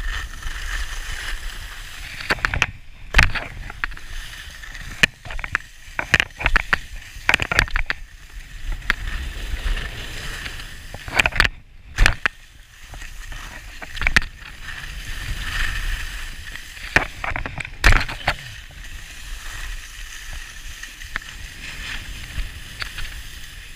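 Skis sliding and scraping over packed snow with wind rushing on an action camera's microphone, broken by frequent sharp knocks and thumps.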